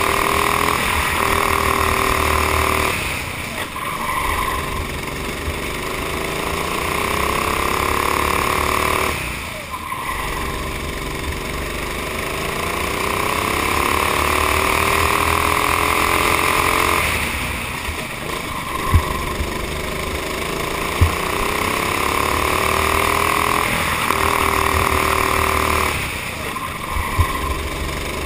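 Honda GX390 single-cylinder four-stroke kart engine at racing speed, rising in pitch along each straight and dropping away as the throttle comes off for the corners, several times over. Three sharp knocks in the second half.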